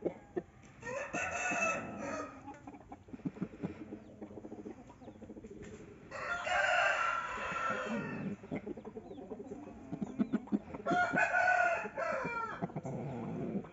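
Roosters crowing three times, each crow lasting a second or two, with short clicks and taps in between.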